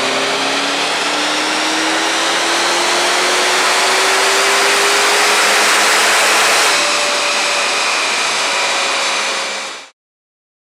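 Chevrolet Camaro's engine doing a full-throttle pull on a chassis dyno, its pitch rising steadily under load. About seven seconds in the throttle closes and the pitch drops, leaving a steady whine as it coasts down before the sound fades out.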